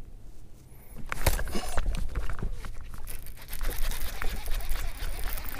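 Baitcasting reel cranked hard with rod-handling clatter as a bass hooked on a magnum spoon is dragged in, with wind rumbling on the microphone. The noise picks up about a second in.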